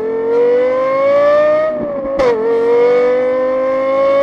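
Car engine acceleration sound effect: a pitched engine note climbs steadily, drops with a gear change about two seconds in, then climbs again.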